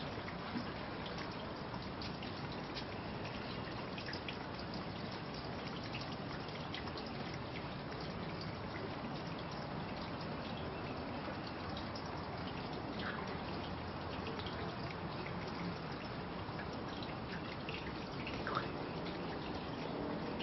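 Steady, even background noise with a few faint ticks scattered through it.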